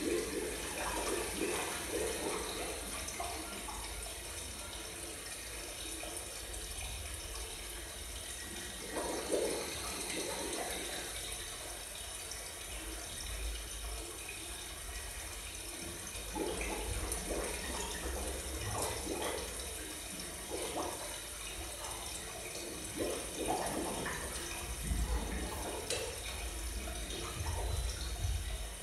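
Running water: a steady hiss with irregular gurgling bursts that come thicker in the second half.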